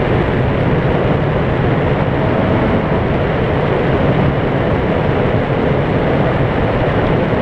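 Paramotor engine running steadily at power in flight, loud and unfiltered, with wind rush over the microphone.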